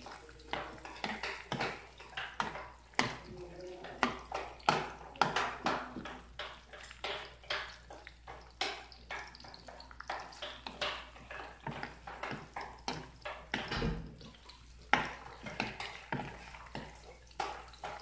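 Metal ladle stirring sliced onions in a frying pan, clinking and scraping against the pan in irregular strokes, one or two a second.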